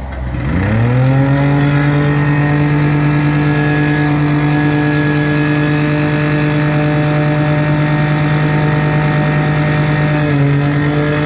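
Engine of a TOVISEN V1000 skid steer loader driving its snow blower attachment. It revs up sharply in the first second, then holds a steady high speed, dipping briefly about ten seconds in before picking back up.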